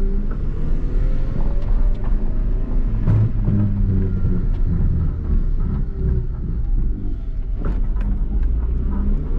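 Inside a 1991 Honda Civic DX with a D-series engine and 5-speed manual: the engine revs up in first gear, then the throttle is lifted and the revs fall away about six seconds in. On deceleration there is a metallic grinding from the drivetrain, whose cause the owner does not know; it stops with the clutch in or in neutral.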